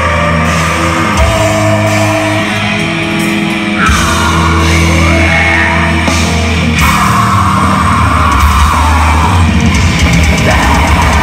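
A heavy metal band playing live and loud: distorted guitars and bass holding low sustained notes over drums, with a vocalist's screamed vocals coming in about four seconds in.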